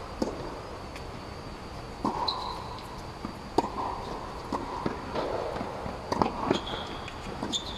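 Tennis rally on a hard court: a serve near the start, then several sharp racket hits on the ball and ball bounces, echoing under the dome. Short rubber-soled shoe squeaks come as the players move, around two seconds in and again near the end.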